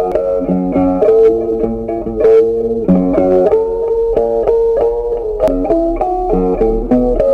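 Background instrumental music: a melody of short plucked notes over a low bass line.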